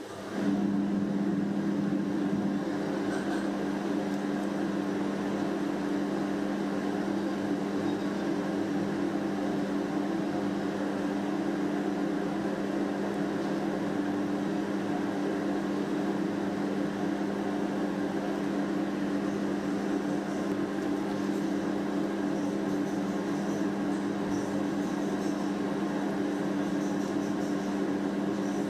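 Steady machine hum with a low drone, switching on abruptly at the start and holding unchanged.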